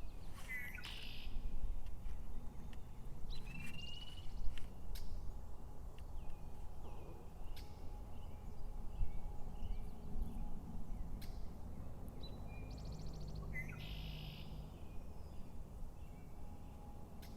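Wild songbirds singing outdoors in short chirping phrases, one with a fast trill near the end, over a steady low background rumble and a few sharp clicks.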